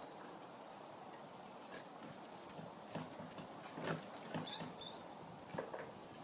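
A horse being saddled, with faint scattered knocks and rustles from its tack and hooves, a few of them about three, four and five and a half seconds in. A short high chirp about four and a half seconds in.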